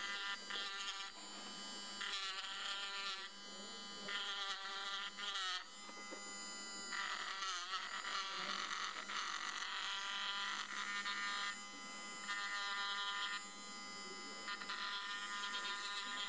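Auxiliary mini-drill motor whining at high speed as its green abrasive point grinds a steel knife edge. The pitch dips briefly twice, about five and a half and seven and a half seconds in, as the point bears on the blade.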